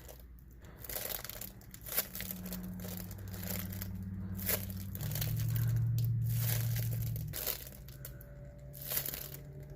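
Crinkling and rustling from handling a homemade foam squishy and its paper tag, with scattered small crackles and clicks. A low steady hum rises underneath for a few seconds in the middle.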